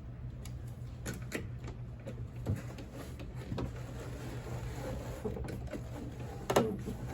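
Scattered small clicks and knocks of an Allen key working the set screw of a window crank being fitted onto its spline on a 1971 VW Super Beetle door, with a louder knock near the end, over a steady low hum.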